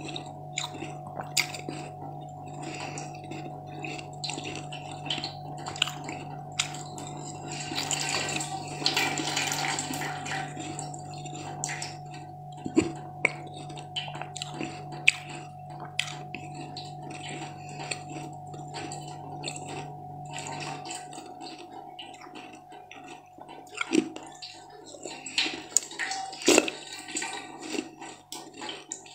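Close-miked mouth sounds of a person biting and chewing a soft, wet, jelly-like food: a stream of short wet clicks and smacks. A steady low hum runs underneath and stops about two-thirds of the way through.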